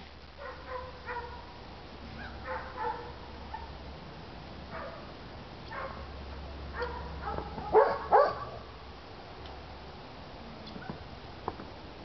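Other dogs barking: scattered short barks and yips, with two louder barks close together about eight seconds in.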